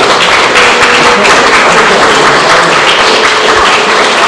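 Audience applauding, a dense steady clapping.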